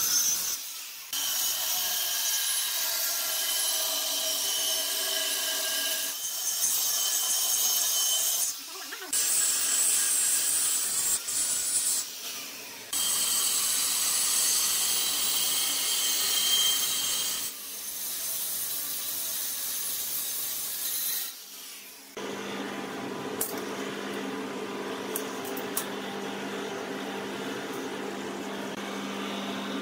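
Angle grinder with a thin abrasive cut-off disc cutting through a flat steel bar, a high-pitched grinding screech in several passes with short breaks between them. Near the end it gives way to a steadier, lower-pitched hum.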